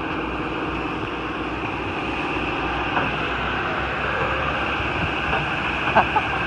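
Steady machinery or vehicle noise, with a few short knocks about three and six seconds in.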